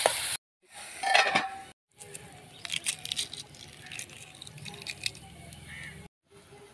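Hands peeling a hard-boiled egg: the cracked shell crackles and crinkles in small irregular clicks as it comes away. A brief loud clatter comes about a second in.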